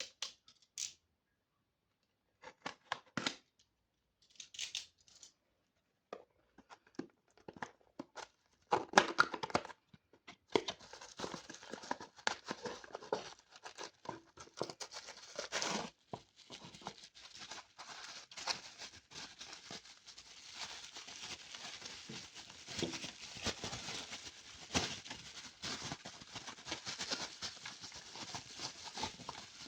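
Toy packaging being opened by hand: a few scattered clicks and short rustles, then from about ten seconds in, continuous tearing and crinkling of the wrapping.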